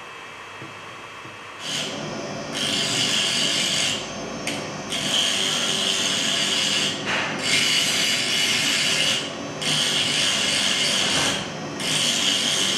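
Small handheld powered conservation tool cleaning a corroded archaeological find: a high grinding scrape that starts about a second and a half in and runs in spells of one to three seconds, stopping and restarting several times.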